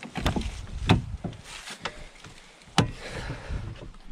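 1996 GMC Sonoma pickup's driver door being unlocked with a key, opened and climbed through: a run of clicks and knocks, the sharpest about a second in and just under three seconds in.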